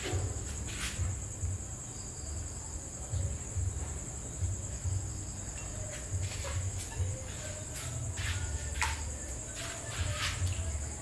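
Steady high-pitched insect chorus, with scattered short clicks and a low rumble underneath.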